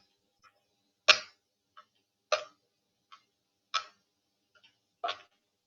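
A matchbox being tossed back and forth, clicking sharply about every second and a half, with fainter clicks in between.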